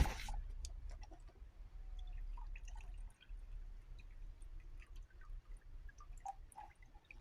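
Kitchen handling sounds: a sharp knock right at the start, then faint scattered clicks and small wet drips over a low steady hum.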